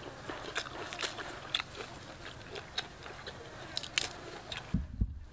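Close-up eating sounds: irregular chewing, lip smacks and small crunches as grilled fish and pineapple are picked apart by hand and eaten. A low thump comes near the end.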